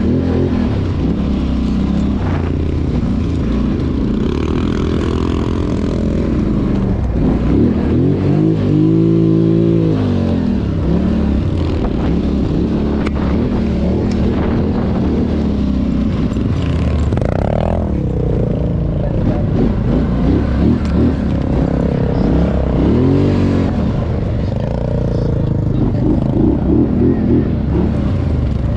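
ATV engine running under load, its pitch repeatedly rising and falling as the throttle is opened and eased off, with several strong revs along the way.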